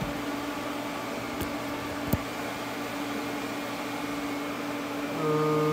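Steady machine hum with a faint hiss, one sharp click about two seconds in, and a second, lower steady tone joining near the end.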